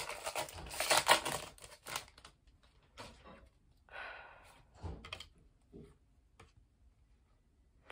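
Plastic foil wrapper of a Topps baseball card pack crinkling for the first couple of seconds. Then the cards are shuffled and flicked through in the hands: scattered soft clicks and rustles.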